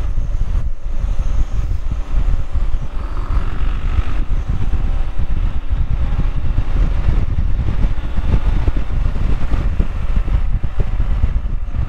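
BMW R1100GS motorcycle's boxer-twin engine running while riding, under steady wind rushing over the microphone.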